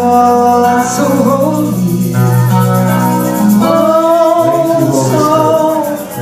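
Music with singing: sustained sung notes over a steady low accompaniment, in the manner of a worship song.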